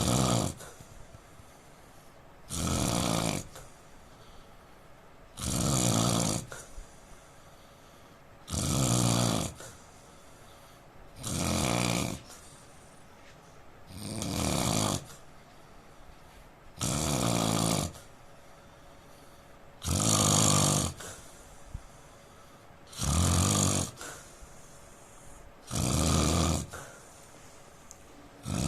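A man snoring loudly and regularly, one buzzy snore about every three seconds, each lasting about a second, with quiet breathing gaps between.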